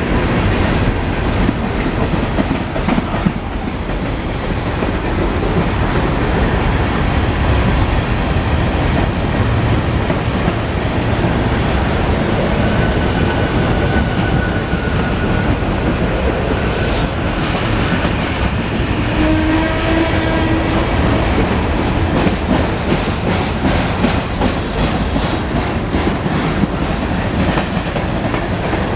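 Freight cars of a long mixed freight train rolling past at speed: a steady rumble with wheels clacking over the rail joints, and a few faint brief squeals and hisses about halfway through.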